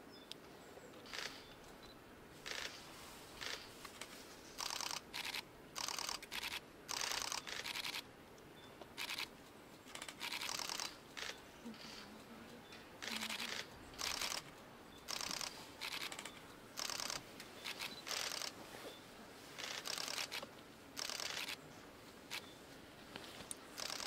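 Camera shutter firing in bursts of continuous shooting: about twenty short runs of rapid clicks, each under a second long, with short pauses between them.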